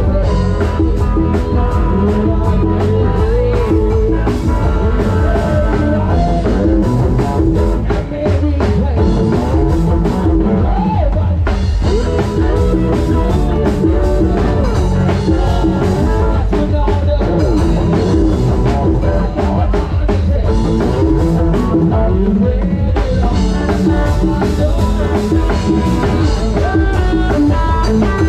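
Live band music played loud through a parade-truck sound system with heavy, steady bass from its SR18 bass cabinets: electric guitar and keyboards over a drum beat, with a singer's voice.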